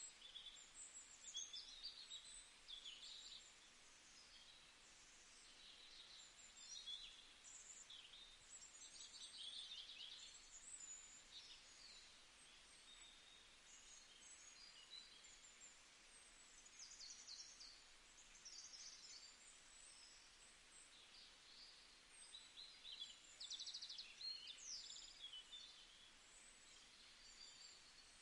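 Faint birdsong: several small birds chirping and trilling over and over, over a low steady hiss.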